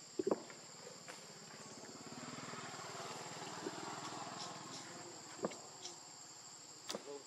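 A steady, high-pitched insect drone in the undergrowth. A lower buzzing hum swells and fades in the middle, and a few short knocks or rustles come from small monkeys moving over the stone steps and leaves, the loudest just after the start.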